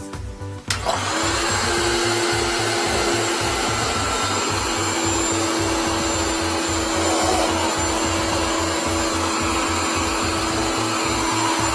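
Wet/dry vacuum switched on about a second in, its motor running with a steady rushing noise and hum as the hose sucks from the clogged toilet bowl. Background music with a steady beat plays underneath.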